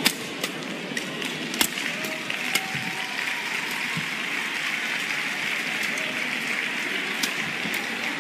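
Badminton rackets striking a shuttlecock in a rally: sharp smacks at irregular intervals, a few faint shoe squeaks on the court, over a steady hiss of hall noise.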